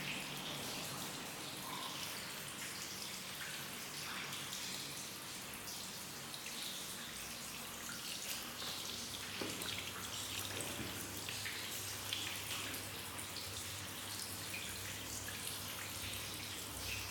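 Water trickling and dripping down the steps of a flooded stairwell: a steady splashing run of water with many small drips through it.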